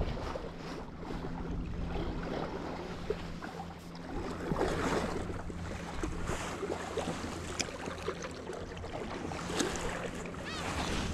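Wind buffeting the microphone over small waves lapping against shore rocks, with a few faint light clicks.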